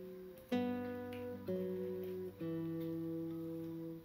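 Background music: a soft acoustic guitar playing slow sustained chords, a new chord struck about every second.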